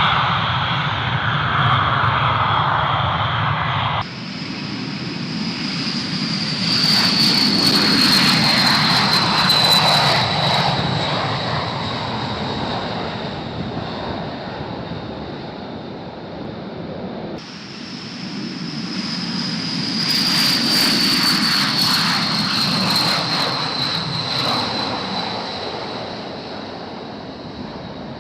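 B-52H Stratofortress bombers' eight turbofan engines at takeoff power, heard in two separate passes. Each time the jet noise swells and fades, and a high turbine whine falls in pitch as the bomber goes by.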